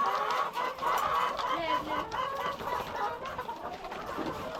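A flock of laying hens clucking together, many overlapping calls at once with no pause: hungry birds crowding in at feeding time.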